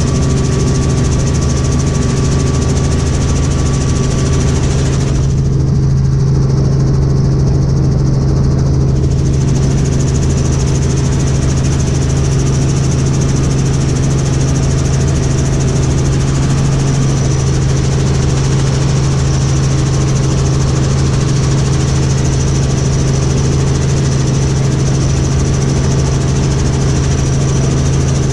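Robinson R44 Raven II helicopter heard from inside the cockpit in cruise flight: the steady drone of its Lycoming six-cylinder engine and rotors, with a strong low hum under a broad rush. The higher rush dips for a few seconds about five seconds in, then returns.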